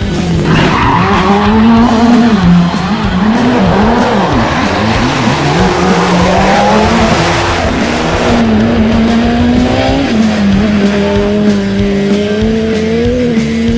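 Rally car engine revving hard, its pitch swinging quickly up and down through the first half, then climbing in longer, steadier pulls, with tyres skidding and scrabbling on a dirt road.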